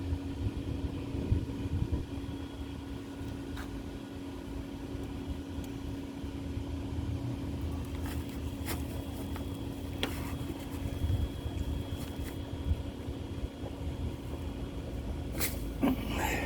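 Steady low hum of running machinery with a constant tone through it, and a few faint clicks and taps scattered across it.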